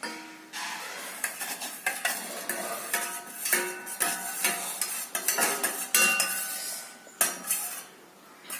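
A spoon stirring brewed tea in a pot, clinking and scraping against its sides over and over, tailing off near the end.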